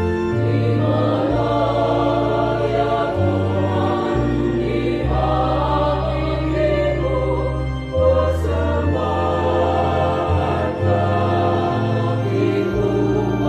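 Church choir singing in several voice parts over held low bass notes, the chords changing every second or two.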